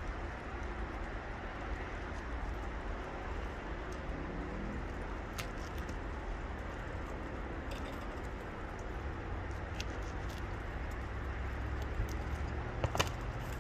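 Steady low rumbling background noise, with a few sharp clicks and knocks of a cleaver against the wooden cutting board as a burbot is cut, the loudest near the end.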